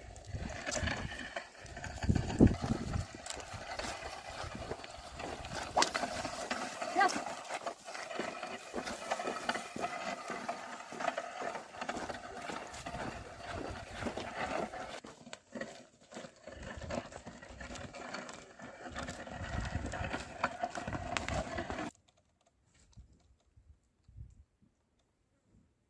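Oxen drawing a plough: scattered thuds and knocks over a steady outdoor noise, cutting off suddenly about 22 seconds in.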